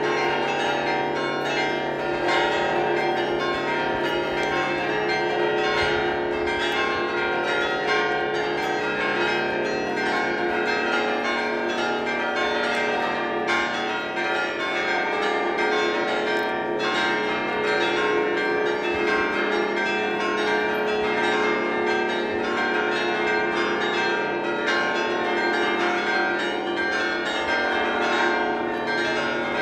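Festive ringing of the Basilica of Saint-Sernin's set of fixed church bells: many bells of different pitches struck in quick succession, their notes overlapping and ringing on in a dense, continuous peal.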